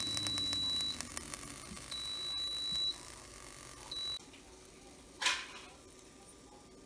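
Air fryer's timer alarm beeping at the end of its cooking cycle: a high, steady electronic tone about a second long, repeated every two seconds, three times, the last one cut short. A brief swish comes about five seconds in.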